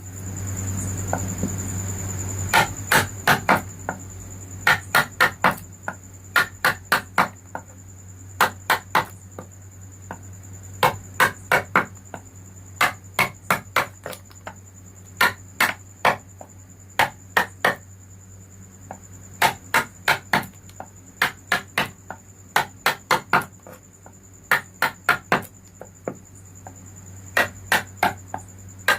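Mallet striking a wood-carving chisel, sharp knocks in quick groups of two to four, repeating steadily. A steady high-pitched tone and a low hum run underneath.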